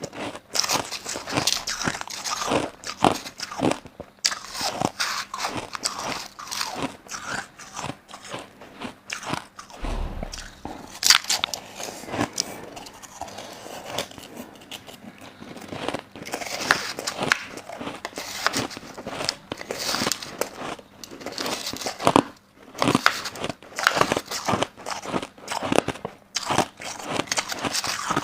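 Crushed ice being bitten and chewed with close-miked, crunchy cracks coming in quick irregular runs, broken by a few brief pauses.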